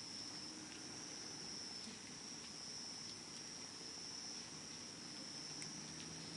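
Wood campfire crackling with small sharp pops every second or so, under an insect's continuous high-pitched trill.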